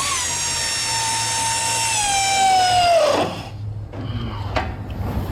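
Cordless power wrench with a 13 mm socket tightening a bolt: a steady motor whine that sags slowly in pitch as the bolt draws tight, then stops about three seconds in. A few light clicks and knocks follow.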